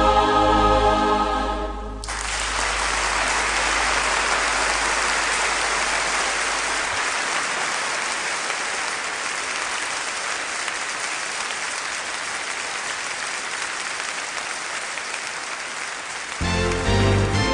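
A choir song ends about two seconds in, and the congregation applauds for about fourteen seconds, slowly fading. Music starts again near the end.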